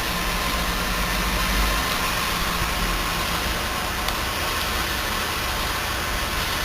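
Steady low machine hum under an even hiss, with no distinct knocks or changes.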